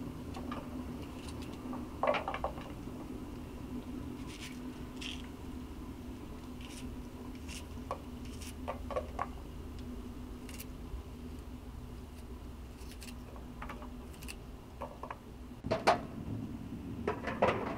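Scattered clinks and knocks of kitchen utensils and cookware being handled, about a dozen over the stretch and loudest near the end, over a steady low hum.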